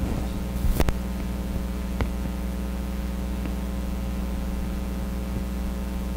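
Steady electrical mains hum with a brief rustle and a couple of sharp knocks about a second in, then single clicks near two seconds and again a little later.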